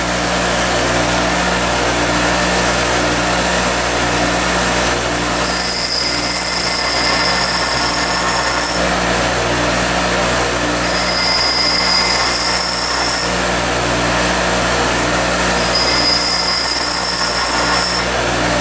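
Craftsman 8-inch bench grinder running steadily while a dull 3/4-inch drill bit is sharpened on its wheel. Three times the bit is pressed to the wheel, and each contact adds a high grinding whine lasting two to three seconds.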